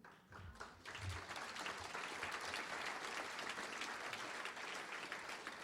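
Audience applauding, starting with a few scattered claps and building to steady applause about a second in.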